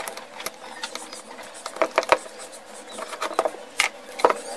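A string of light clicks and taps from a screwdriver and small metal parts as the carbon brush holder screws of an electric hammer drill are undone, with a few sharper clicks about two seconds in and near the end.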